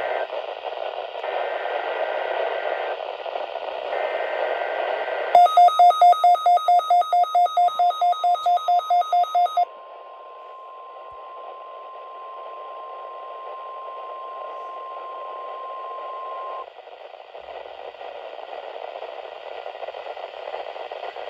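NOAA Weather Radio receiver playing static hiss, then a weather-radio alert beeping rapidly, about four beeps a second for some four seconds, over the start of the steady 1050 Hz warning alarm tone, which holds for about nine seconds and cuts off sharply, leaving the hiss.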